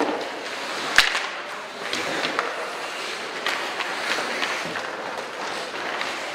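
Ice hockey in play: a steady hiss of skates on the ice with scattered clicks of sticks, and one sharp crack, the loudest sound, about a second in.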